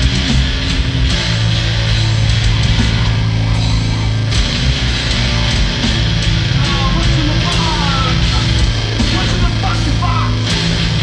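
Live instrumental heavy metal jam on distorted electric guitar, electric bass and drum kit, loud and dense, with long held low bass notes. Short gliding high notes come in over the riff in the second half.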